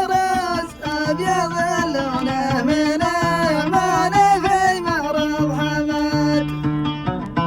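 Male voice singing an Arabic song in a Middle Eastern style over instrumental accompaniment with steady low notes, ending on a long held note.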